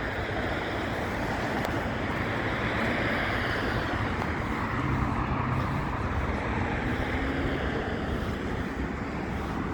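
City street traffic: a vehicle's tyre and engine noise swells to its loudest about three seconds in and eases off, over a steady wash of traffic.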